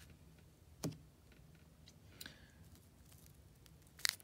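Quiet handling of baseball cards and a wax-paper card pack: one sharp click about a second in, and a few quick clicks near the end as the next pack is taken in hand.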